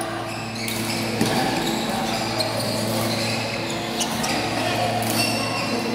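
Badminton in a large indoor hall: several sharp racket hits on shuttlecocks and short shoe squeaks on the court floor, over a steady low hum.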